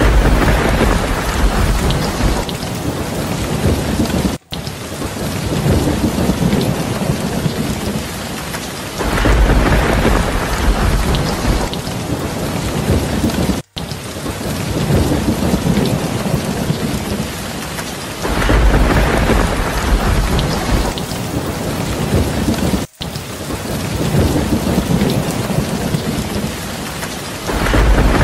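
Steady rain with deep rumbles of thunder, a recording looping about every nine seconds; a brief dropout falls between each pair of rumbles.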